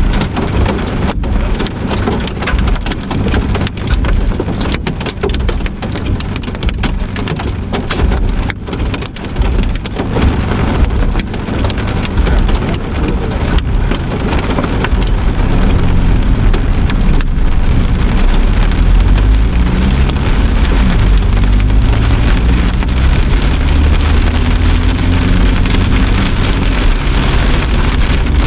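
Heavy thunderstorm rain beating down, with many sharp drop strikes in the first half. About halfway through, a louder, steadier low rumble takes over.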